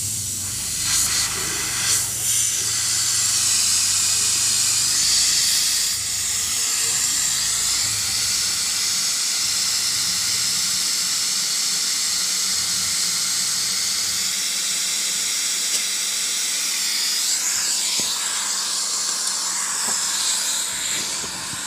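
Steady, loud hiss of gas jetting under pressure during refrigerator condenser replacement, with a couple of light knocks about one and two seconds in.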